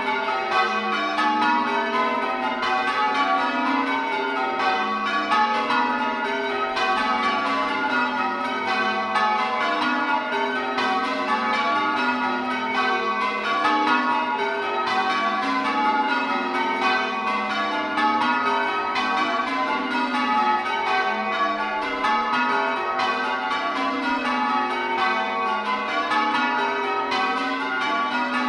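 Ring of eight church bells (tenor 12–1–9, 626 kg, in F♯) rung full circle, each bell striking in turn in a steady, even rhythm, the strikes overlapping into a continuous peal.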